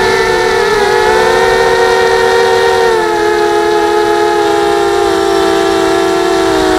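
Mini 250-size FPV quadcopter's motors and propellers whining steadily in flight, heard from the camera on the craft itself. Several close tones run together and dip slightly in pitch about three seconds in.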